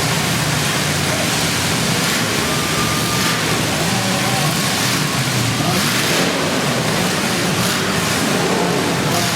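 Demolition derby cars' engines running and revving under a dense, steady wash of noise, with a few brief surges.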